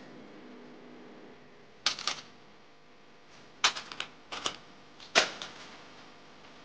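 Sharp, crisp clicks and crackles of baking paper as pastry squares are handled and pressed onto it, in three short clusters.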